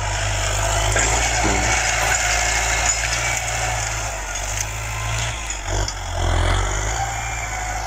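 Farm tractor's diesel engine running steadily under load as it pulls a disc plow through the soil, swelling a little louder a little past halfway.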